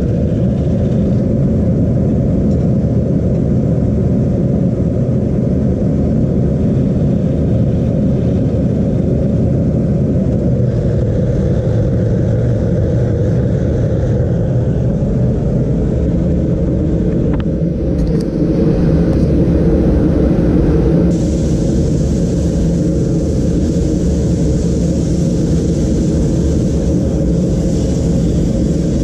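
Propane forge burner running with a steady low roar, the upper hiss shifting in tone a couple of times.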